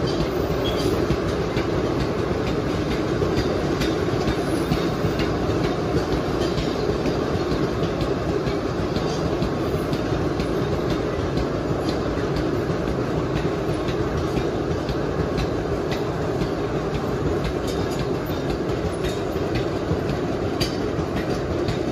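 Loaded sugarcane bins of a narrow-gauge cane train rolling past: a steady rumble with the steel wheels clicking over the rail joints.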